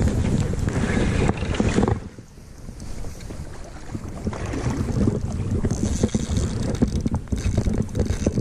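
Wind rumbling on the microphone, with rubbing and handling noise from a spinning rod and reel as a hooked salmon is played. Loud for the first two seconds, dropping briefly, then building again.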